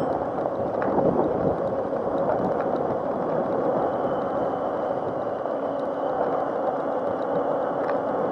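Razor MX500 electric mini dirt bike riding along, its chain-driven electric motor giving a steady whine over tyre and wind noise, with a brief louder jolt about a second in.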